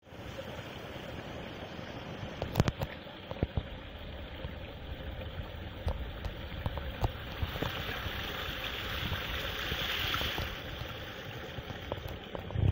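A small cascade of spring water splashing steadily over stones into a shallow pool, with a few sharp knocks about two and a half to three and a half seconds in.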